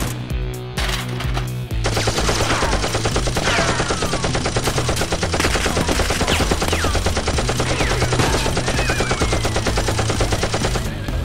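Rapid automatic gunfire sound effects, dubbed over toy-blaster firing. A few scattered shots come first, then an unbroken stream of fire from about two seconds in until near the end, with short falling whistles over it and action music underneath.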